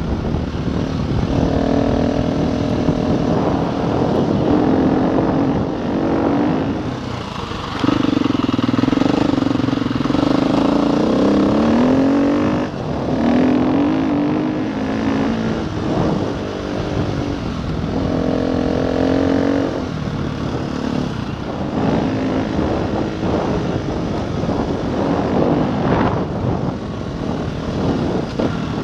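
KTM enduro motorcycle's single-cylinder engine running under way on a gravel track, its pitch rising and falling repeatedly as the throttle is opened and closed, over steady wind and tyre noise with occasional gravel clatter.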